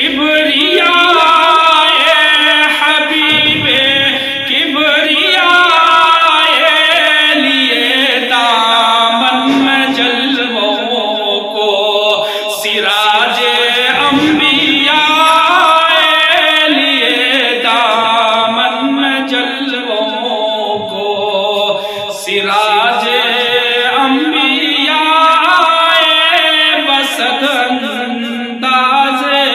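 A man singing an Urdu devotional kalam solo into a microphone, in long, wavering held notes.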